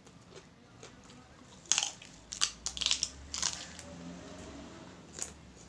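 Crisp crunching as raw papaya stalk and leaves are bitten and chewed: a quick run of loud crunches starting about a second and a half in, and one more near the end.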